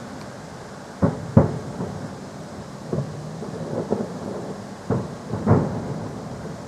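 Festive fireworks shells bursting overhead in a series of booms, each followed by a rolling rumble: two close together about a second in, two more around three to four seconds, and two near the end.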